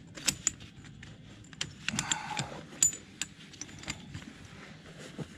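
Heavy steel tire-chain links clinking and rattling against each other as gloved hands work them around a tractor tire, in a series of irregular sharp clicks.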